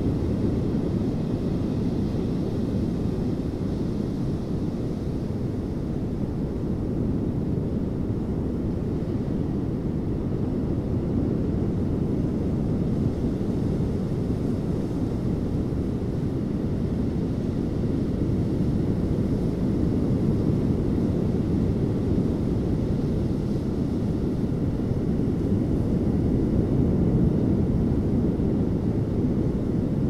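Distant ocean surf breaking on the beach, heard as a steady low rumble that swells a little near the end.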